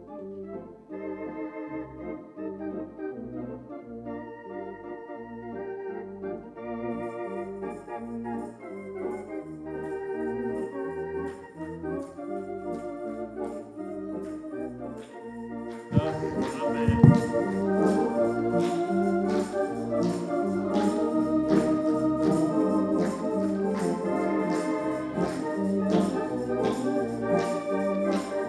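Organ playing held chords. About halfway through it grows louder, with a single thump, and a steady beat of short accents runs under it from there.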